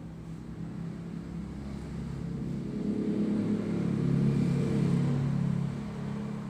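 A motor vehicle's engine passing by, growing louder to a peak about four to five seconds in, then fading.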